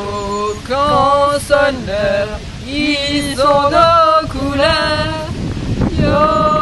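Two women singing a song together without accompaniment, in long held notes that slide from one pitch to the next.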